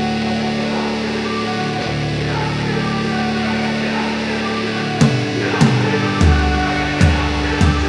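Background music on guitar: sustained chords at first, with a steady drum beat and bass coming in about five seconds in.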